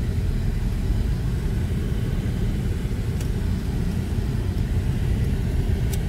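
Steady low rumble of a car driving slowly, heard from inside the cabin, with a faint tick or two.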